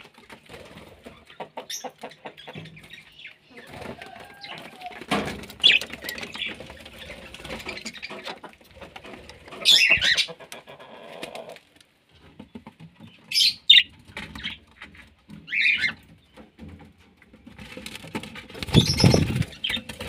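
Caged budgerigars and a cockatiel: wings fluttering and a few short, sharp chirps spread through the middle. Small clicks and rubbing of the camera being handled near the cage wire, with a louder low rumble about a second before the end.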